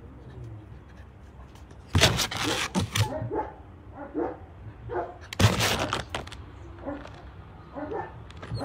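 Puppy barking and whining, with two loud barks, one about two seconds in and one about halfway, and short whines and yips in between.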